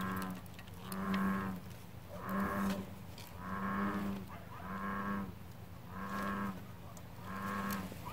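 American bullfrog calling: a regular string of low, moo-like croaks, one about every second and a quarter, seven in a row.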